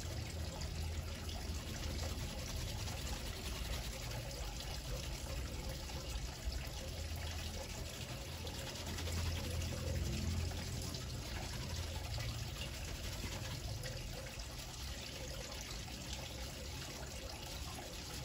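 Steady hiss with a low hum underneath: constant background noise, with no distinct rubbing strokes standing out.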